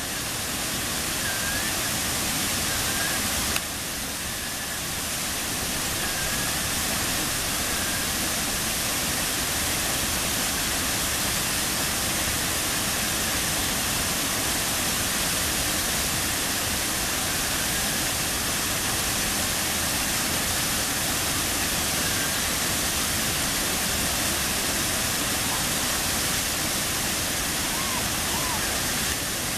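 Brooks Falls white water rushing over the rocks: a steady, unchanging rush of falling and churning river water.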